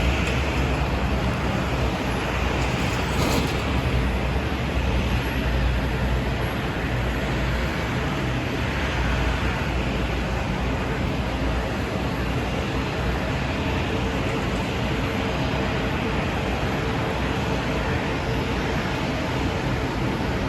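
Steady apron noise from ground-handling vehicles and equipment working around a parked Boeing 777: a constant low engine hum with a faint steady whine above it.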